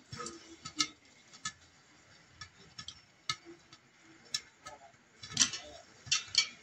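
Popcorn kernels popping in a covered steel pot with a glass lid: scattered sharp pops, roughly two a second at irregular intervals, the loudest about five seconds in.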